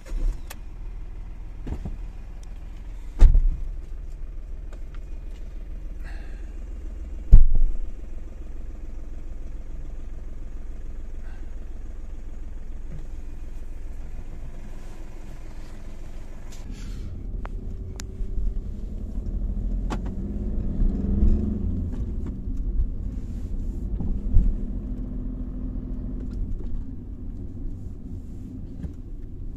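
Škoda Fabia's engine idling, heard from inside the cabin as a steady low hum, with two sharp thumps about three and seven seconds in. From about halfway through, the engine and road noise rise and vary as the car pulls away and drives.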